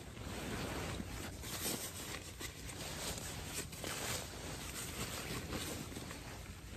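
Nylon sleeping bag rustling and swishing as a person shifts and settles into it, in irregular bursts that thin out toward the end.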